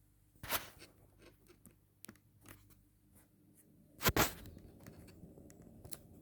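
Paper pages of a picture book being handled and turned: scattered soft clicks and rustles, a sharp rustle about half a second in, and a louder double rustle about four seconds in.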